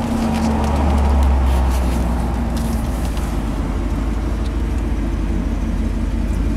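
Vortec 350 V8 of a 1978 Chevy pickup heard from inside the cab while driving: a low engine rumble with road noise that swells about a second in and then runs steady.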